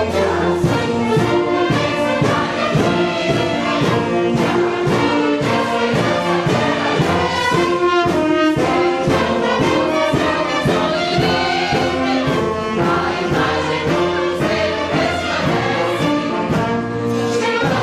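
An orchestra with prominent brass playing a national anthem, with sustained chords that continue throughout.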